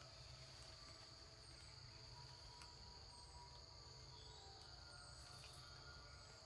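Near silence with a faint, steady high-pitched insect drone, and a few short, thin, high chirps scattered through it.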